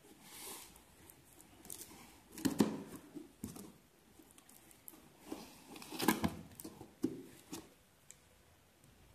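A knife slitting and tearing packing tape on a cardboard shipping box, in short irregular scraping and ripping strokes. The loudest strokes come about two and a half and six seconds in.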